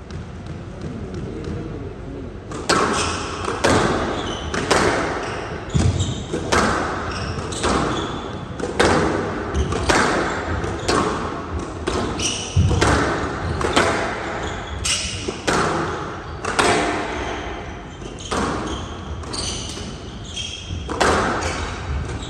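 Squash rally: the ball cracks off rackets and the walls of a glass court about once a second, echoing in the hall. The hits start about two and a half seconds in, after a quieter lead-in before the serve.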